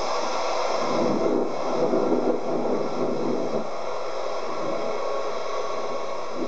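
The CFM56 turbofan engines of an Airbus A340-300 taxiing past: a steady rushing jet noise with high, even whining tones. It is loudest in the first two or three seconds, then eases off as the aircraft moves away.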